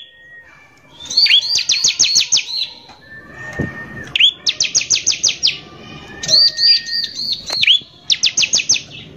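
Bar-winged prinia (ciblek) singing hard in repeated phrases. Each phrase is a few hooked chirps followed by a fast, harsh run of notes, the rapid 'nembak' delivery, three phrases in all.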